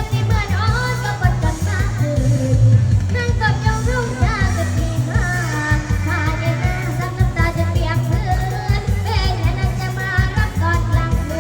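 A young girl singing a Thai song over a backing track with a steady bass and beat.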